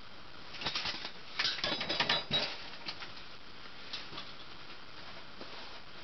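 A 1981 Casablanca Four Seasons ceiling fan running steadily under a constant even hiss. From about half a second to two and a half seconds in comes a flurry of sharp clicks and rattles, and a few single clicks follow later.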